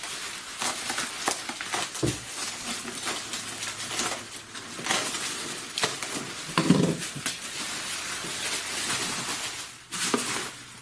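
Green bubble-wrap packing being pulled and peeled off by hand: a dense plastic crinkling and crackling with many sharp little snaps.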